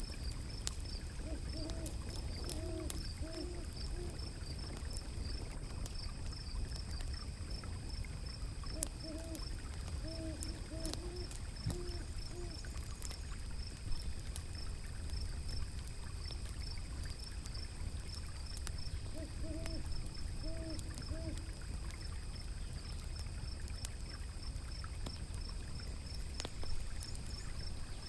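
Riverside fire ambience: a wood fire crackling with scattered sharp pops over a steady low rush of flowing water. An owl gives three short runs of low hoots, and a steady high pulsing trill sounds throughout.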